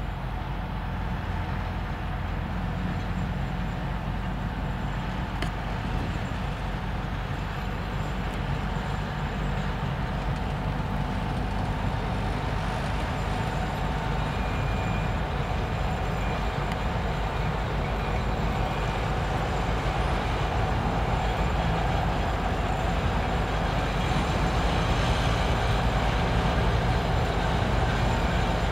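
Twin-section 2M62 diesel locomotive's two-stroke V12 engines working under power, a steady low throbbing drone over the rumble of the passing freight train, growing slightly louder towards the end.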